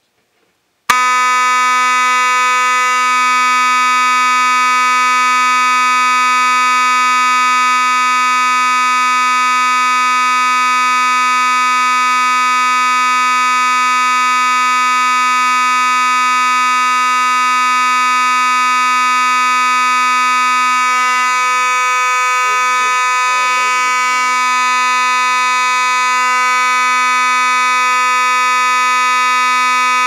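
FOS (Faraday) 6120 fire alarm horn sounding continuously: a loud, steady, low buzzy tone that starts about a second in and holds without a break.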